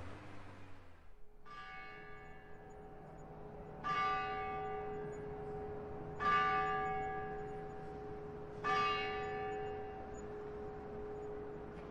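A single church bell struck four times, about two and a half seconds apart, each stroke ringing on in a long, slowly fading hum.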